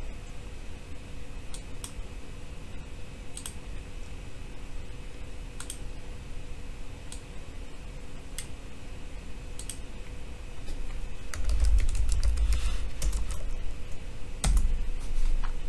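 Typing on a computer keyboard, entering a password. Single keystrokes come about once a second at first, then a quicker run of keys with low bumps against the desk near the end.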